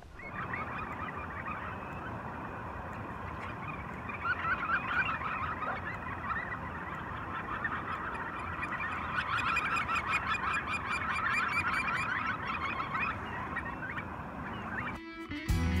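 A flock of shorebirds calling: a dense chatter of many short, overlapping calls that grows louder about four seconds in and stops shortly before the end.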